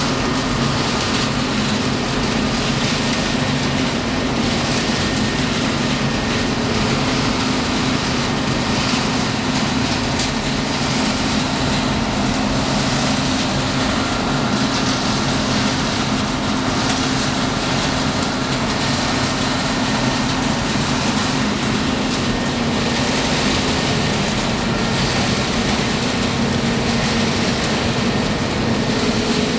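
VENTI OELDE industrial exhaust system's extraction fans running: a steady, loud rush of air with a constant low hum.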